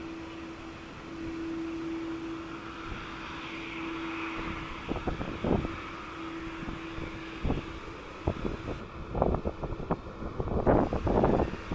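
Airbus A330-300 jet engines running at a distance, a steady drone with a steady hum in it. From about five seconds in, wind buffets the microphone in gusts that grow stronger near the end.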